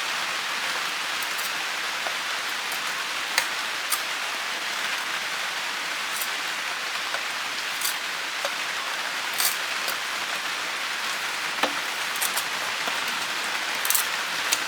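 Sharp metal clicks every second or so, as the copper hairpin bends of an air-conditioner coil are crimped one after another, over a steady even hiss.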